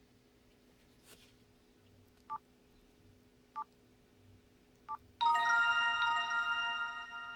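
Hitachi W43H mobile phone: three short two-tone key beeps about a second and a quarter apart, then about five seconds in a ringtone starts playing from its speaker, a melody of several sustained bright tones.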